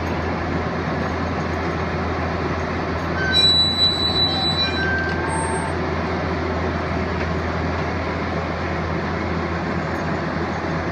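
Caterpillar mini excavator's diesel engine running steadily under working load. About three and a half seconds in, a brief louder stretch of high squealing and clatter.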